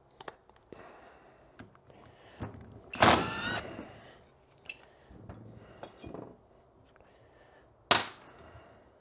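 Cordless power driver spinning briefly for about half a second, backing a bolt out of a motorcycle brake caliper bracket, among light clicks and knocks of metal parts and tools; near the end, one sharp knock.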